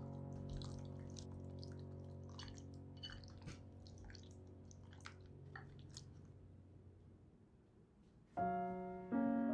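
Chopsticks stirring raw pork ribs in a wet, starchy marinade in a glass bowl: scattered soft wet squelches and clicks. These play over a held chord of gentle background music that slowly fades out, and new piano notes begin near the end.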